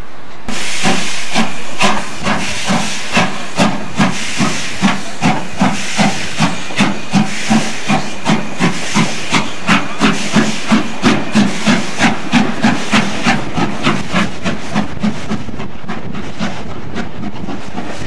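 Steam locomotive starting a train: a sudden loud hiss of steam, then a steady run of exhaust chuffs at a little over two beats a second, fading away after about fourteen seconds as the engine draws off.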